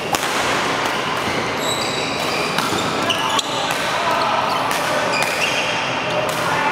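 Doubles badminton rally: racket strikes on the shuttlecock as sharp cracks, and shoes squeaking briefly on the court mat, over a steady din of voices in a large sports hall.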